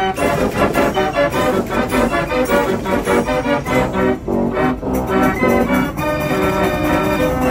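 Organ music playing quick runs of notes, settling into held chords about six seconds in.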